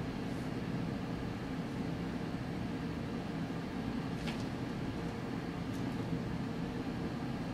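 Steady low hum with a faint higher tone running through it, and a brief faint high sound about four seconds in.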